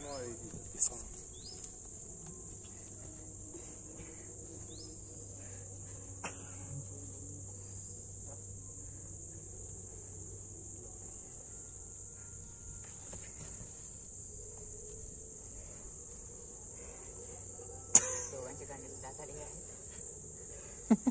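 Steady high-pitched chirring of crickets, with a few sharp knocks, the loudest about eighteen seconds in.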